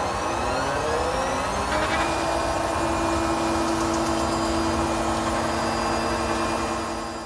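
Stepper motors driving the gantry axes of a large 3D-printed CNC / 3D-printer frame. Their whine rises in pitch over the first two seconds as the axes speed up, then holds steady over a whirring noise, and fades near the end.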